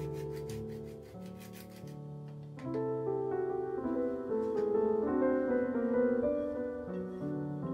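A block of Parmesan rasped on a flat stainless-steel hand grater, about four strokes a second, stopping about two seconds in. Soft piano background music plays throughout.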